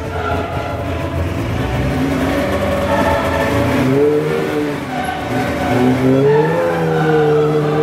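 Snowmobile engine revving and pulling away, its pitch rising and falling, with choir music playing over it.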